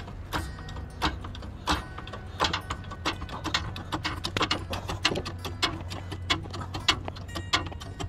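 Hydraulic floor jack being pumped by its handle to lift a car, giving a run of metallic clicks and clanks about two a second with each stroke.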